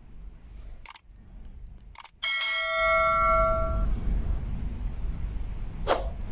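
Sound effects of a subscribe-button animation: two short mouse clicks, then a bell ding that rings for about a second and a half and fades. A low rumbling noise runs under the ding, and there is one more brief click near the end.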